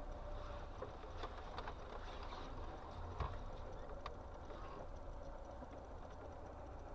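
Faint low hum of a car rolling slowly over packed snow, heard from inside the cabin, with a faint steady tone and a few light clicks and ticks scattered through it.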